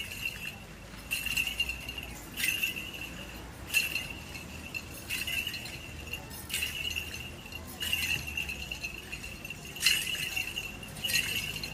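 Small bells on an Orthodox censer jingling as it is swung, a bright ringing burst about every second and a quarter, the bells ringing on in between.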